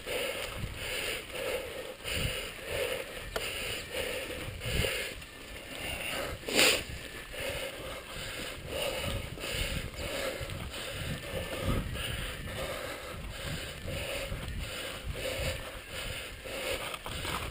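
Mountain bike rolling along a dirt singletrack trail: tyres on dirt and the bike rattling over bumps, with one sharp knock about six and a half seconds in.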